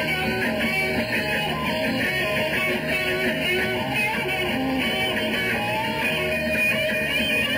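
Live rock band playing, with electric guitar to the fore.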